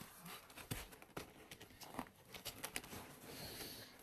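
Plastic marker caps clicking and knocking together, and the fabric of a marker case rustling, as hands struggle to open the case. The clicks are faint and scattered, with a short rustle near the end.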